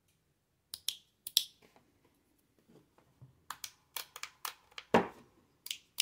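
Small plastic rocker switch being clicked and handled: a series of sharp clicks, a couple about a second in and a quick run of them around four seconds in, with one heavier knock just before the end.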